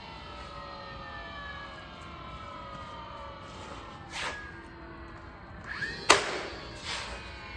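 Three sharp knocks, about four, six and seven seconds in, the middle one loudest, over faint tones that slowly fall in pitch.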